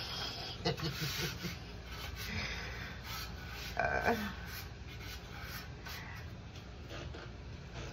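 Dried parsley being rubbed and crumbled against the metal grate of a Ninja Woodfire grill: irregular scratchy, rasping strokes, a few louder ones about a second in and again around four seconds.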